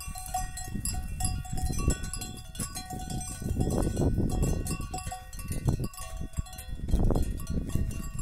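Cowbells on grazing cattle clanking irregularly as the animals move, many short metallic rings scattered through, over a low rumbling noise that swells twice.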